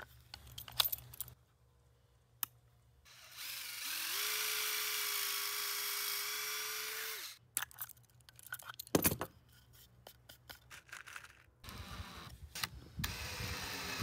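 Cordless drill boring a pocket hole through a pocket-hole jig into plywood: it spins up about three seconds in, runs steadily for about four seconds and stops. Around it come clicks and knocks of the jig and clamp being handled, with a louder knock about nine seconds in.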